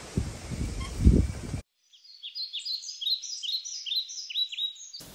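A few dull thumps over background noise, then an abrupt cut to about three seconds of small birds chirping. The chirps are many quick, high notes that slide downward and overlap.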